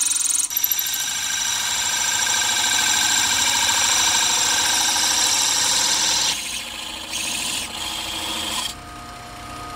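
Drill press running, its bit rasping through a wooden blank as it cuts a circular groove, over a steady whine from the machine. About six seconds in the cutting sound drops and turns uneven, and near the end the press spins on more quietly.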